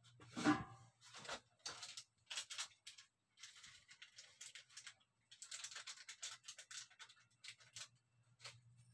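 Irregular short rustling and crinkling noises from off-screen handling, coming in clusters of quick bursts. The loudest is a brief pitched squeak about half a second in. A faint low hum runs underneath.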